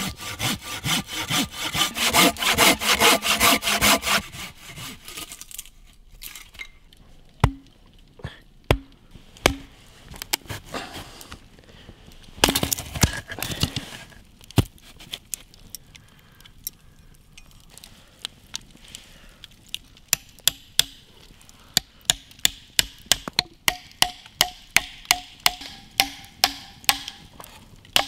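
Wood being sawn by hand in quick, even strokes for the first few seconds, then scattered knocks on wood. About two-thirds of the way through comes a steady run of sharp blows on wood, about two a second.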